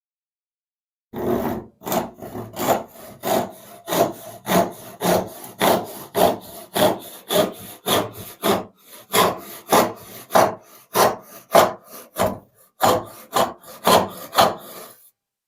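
Freshly sharpened vintage hand rip saw cutting through a pine board, back-and-forth strokes about two a second, starting about a second in and stopping near the end.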